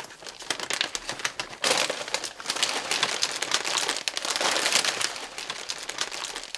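Plastic bags crinkling and rustling as a clear zip-top bag is pulled open and shaken out, with a snack-chip bag handled alongside. The crackling grows busier about two seconds in.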